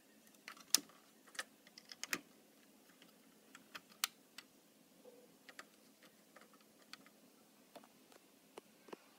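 Fingers handling plastic building-brick minifigures and pressing on the parts of an Enlighten Brick navy ship set: a scatter of light, irregular plastic clicks and taps, the loudest about a second in, around two seconds and around four seconds in.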